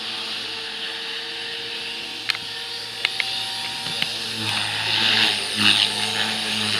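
Radio-controlled 3D helicopter flying aerobatics: a steady motor and rotor drone that grows louder and flutters with the blade whoosh in the second half as the model comes down low and close. A few sharp clicks in the first half.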